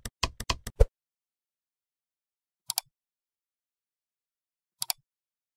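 Keyboard-tap click sound effects of text being typed into a search box: about five quick clicks in the first second, then a double click near the middle and another near the end, with dead silence between them.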